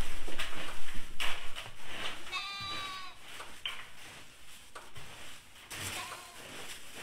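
Pine shavings rustling and scraping as they are spread by hand in a galvanized stock tank, loudest in the first two seconds. About two and a half seconds in, a farm animal gives one short, wavering bleat-like call.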